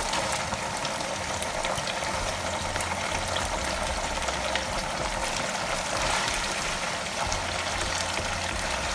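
Hot cooking oil sizzling steadily in a frying pan as tomato purée is added to it and pushed in with a wooden spoon.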